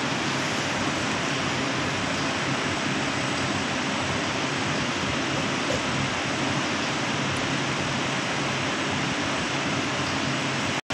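Electric motor of a De Mattia flex tester running steadily, driving the grips that repeatedly bend the rubber specimens. It is a steady, even mechanical noise that drops out for an instant near the end.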